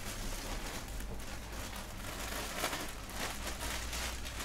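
Plastic wrapping rustling and crinkling as it is handled and pulled off a fursuit tail, with a few louder crinkles midway and a low steady hum underneath.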